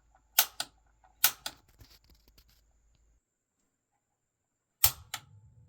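Piezo igniter on a Bradford White water heater's gas valve clicked three times to spark the pilot, each press a sharp snap followed by a softer click; two come about a second apart, then a pause before the third near the end. Repeated clicking is needed because there is air in the newly fitted gas line.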